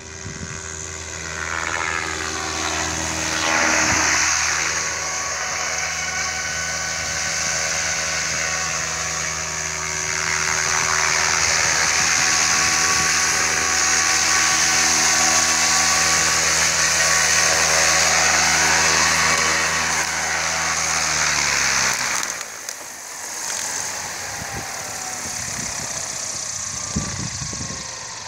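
Gaui R5 radio-controlled helicopter's electric motor and rotor whine, growing louder as it flies in close and lands. About 22 seconds in the pitch falls and the whine drops away as the rotor spools down, leaving a fading whir.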